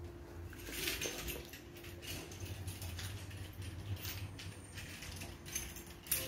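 Scattered soft scuffs and rustles from a handheld phone camera being moved about, over a faint steady low hum.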